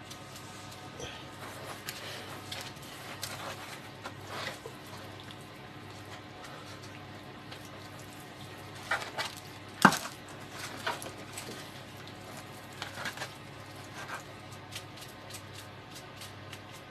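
Hands rubbing oil and spice seasoning into raw chicken pieces: soft wet squishing and patting with scattered small clicks, and one sharp knock about ten seconds in, over a steady low hum.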